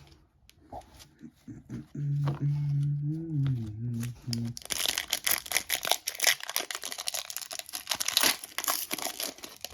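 A voice hums a held tone for a couple of seconds. Then, from about halfway in, the plastic wrapper of a trading-card pack crinkles and tears continuously as it is ripped open.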